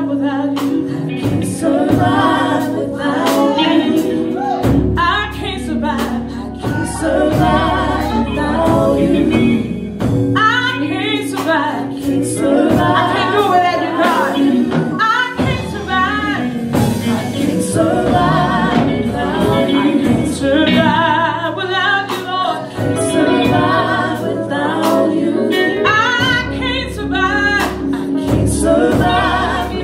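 Live gospel song: a woman sings lead, with backing singers and a band with drums.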